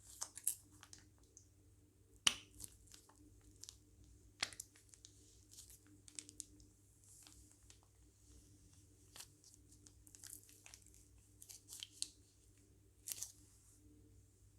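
Hands working slime and plastic piping bags: quiet, irregular crackles, clicks and sticky pops, a dozen or so scattered through the stretch.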